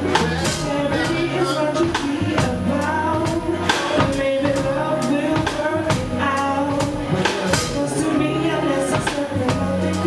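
Live soul band playing: a drum kit keeps a steady beat under bass notes and a wavering melody line.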